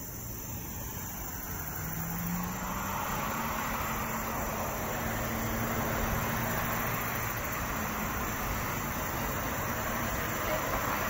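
A car passing on the street, its engine hum and road noise swelling over a couple of seconds and holding for several more before easing near the end. Crickets chirp steadily behind it.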